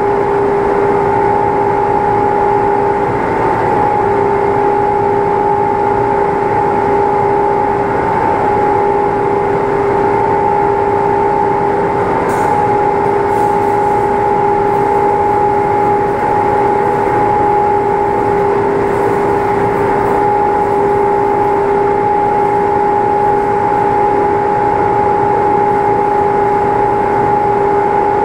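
A machine running steadily: a constant hum on two even tones over a rushing noise, with no change in speed.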